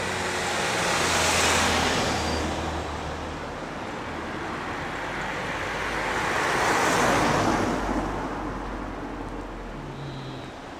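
Two cars passing close one after the other, their tyre and engine noise swelling and fading: the first about a second and a half in, the second about seven seconds in.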